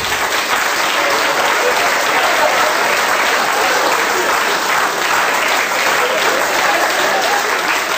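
A live audience applauding steadily.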